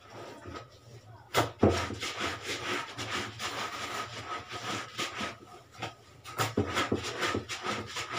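Green plastic hand laundry brush scrubbing clothing laid on a board, in quick repeated rasping back-and-forth strokes that start about a second and a half in.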